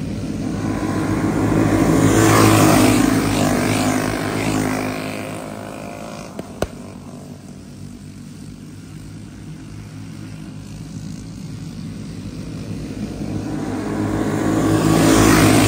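A pack of racing karts with flathead single-cylinder four-stroke engines passes at speed, the engines buzzing loudest about two seconds in and falling in pitch as they pull away, then swelling again as the pack comes round near the end.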